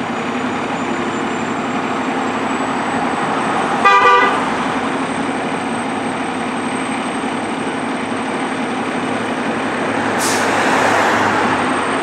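Fire engine's diesel engine idling steadily in the station bay, with one short air-horn toot about four seconds in and a brief burst of air hiss near the end.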